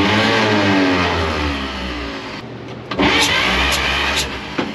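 Starter cranking the 1953 Chevy 5700 COE's straight-six engine over without it firing, twice: about two seconds, then a shorter burst about three seconds in. This is a compression test on one cylinder, which comes up to almost 80 psi.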